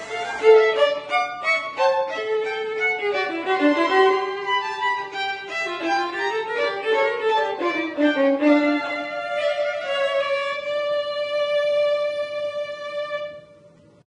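Violin playing a melody that settles into one long held note near the end and fades out.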